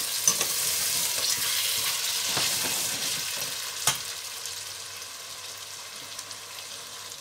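Mutton with onion and spices sizzling as it fries in a steel pot while a spoon stirs it, with a few scraping clicks and one sharp click about four seconds in. The sizzle slowly grows quieter over the last few seconds.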